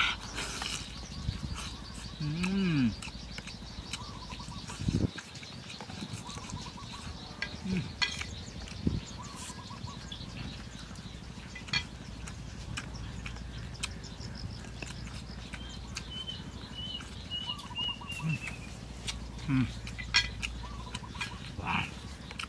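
Eating sounds: roast duck being pulled apart by hand and chewed, with scattered short clicks and smacks. A short call rising and falling in pitch stands out about two and a half seconds in, and a bird chirps a quick string of high notes past the middle.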